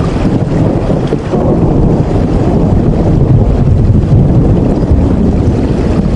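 Heavy rain, a loud steady noise with a deep rumble underneath.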